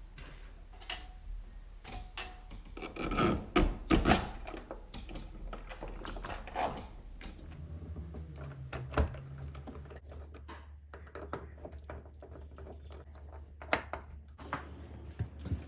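Metal deadbolt parts and screws being worked into a wooden door by hand: irregular scraping, rubbing and clicks, loudest in a cluster about three to four seconds in.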